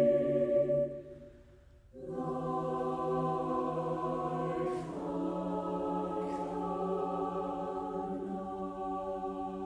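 Choir singing sustained chords. A held chord dies away into the hall's reverberation about a second in, a brief rest follows, then a new chord enters softly at two seconds and is held, shifting twice, with two faint sibilant consonants along the way.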